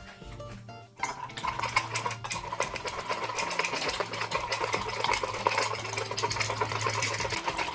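Metal spoon beaten fast inside a ceramic mug, whisking coffee: a rapid, continuous clatter that starts about a second in.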